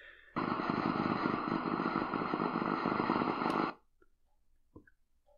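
Loud, steady rushing static from a C.Crane CCRadio SW's speaker, tuned near 4000 kHz on the shortwave band. It cuts off suddenly after about three seconds as the radio is scanned on, and a faint button click follows.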